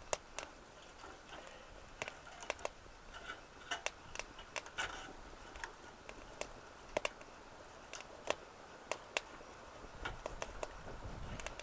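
Twig fire crackling in a BioLite Basecamp wood-burning stove: faint, irregular sharp pops and ticks, a couple a second, with a low rumble joining near the end.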